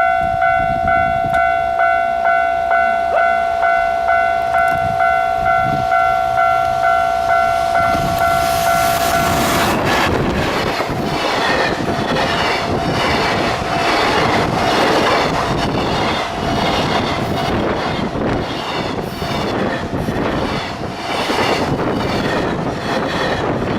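A pulsing electronic warning bell, the kind a railway level crossing sounds, rings steadily at about three strokes every two seconds. About ten seconds in, a freight train hauled by an EF210 electric locomotive passes close by, and the rushing noise of its wagons, with a steady clatter of wheels over rail joints, takes over.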